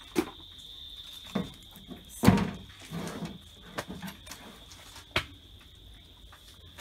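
Scattered knocks and thuds as a plucked chicken carcass is handled and cut with a knife on a table top; there are five sharp knocks, the loudest a little over two seconds in. A steady high-pitched tone runs underneath.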